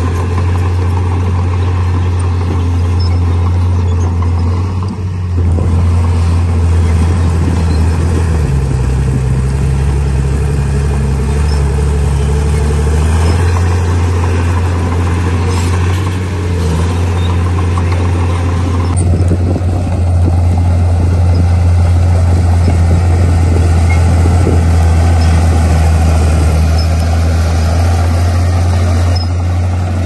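Heavy diesel engine of earthmoving machinery running with a steady low drone, its note changing with the load from about eight to thirteen seconds in, and getting louder at around nineteen seconds in.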